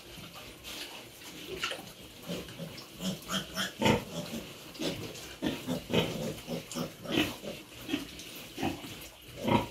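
Pigs giving short, irregular grunts and squeals, the loudest about four seconds in and again near the end.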